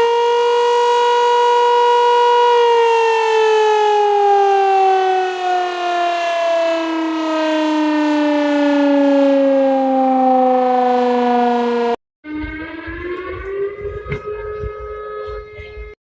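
Warning siren holding one loud steady pitch, then winding slowly down to about half that pitch over some nine seconds. It cuts off abruptly and gives way to another siren rising in pitch over low rumble, which is cut again near the end.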